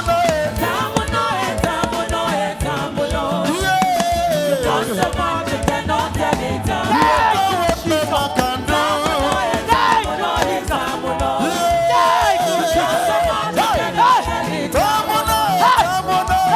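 Live gospel praise music: a band playing a steady beat while a congregation sings and shouts along, many voices at once.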